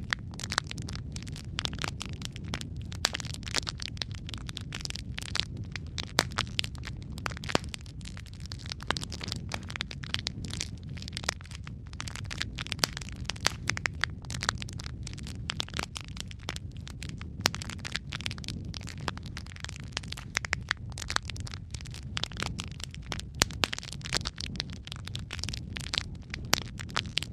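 Wood logs burning in a fireplace: many sharp crackles and pops, irregular and dense, over a steady low rumble of the fire.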